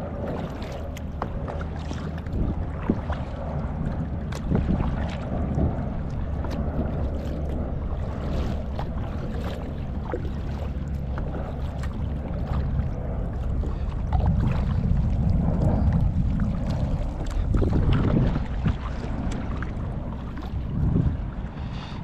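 Wind buffeting the microphone over water sounds from a kayak, with many small splashes and drips. The wind rumble grows louder for a few seconds past the middle.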